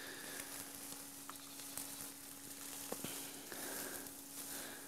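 Compressed alfalfa hay being crumbled by hand into a bucket: faint dry rustling and crackling, with a couple of light clicks and a steady low hum underneath.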